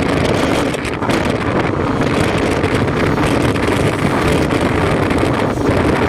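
Wind rushing and buffeting against the microphone at an open window of a moving car, over steady road noise from driving at speed.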